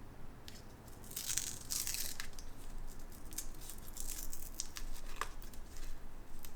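The small silver wrapper of a Schmincke silver watercolour pan being torn open and crinkled: a burst of tearing and rustling about a second in, then scattered small crinkles and clicks as it is handled.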